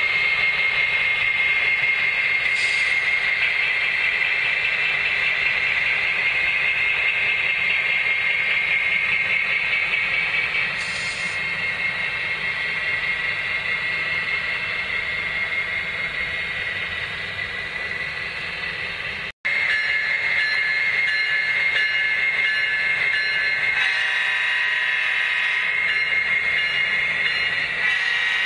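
Model train running along the layout track: a steady high whine with the rolling rattle of its wheels on the rails. The sound drops out very briefly about two-thirds of the way through, then carries on.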